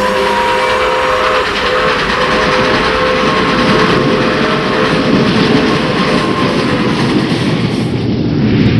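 Train running, with loud steady rumble and rail noise and a few steady high tones over it that fade out about seven seconds in.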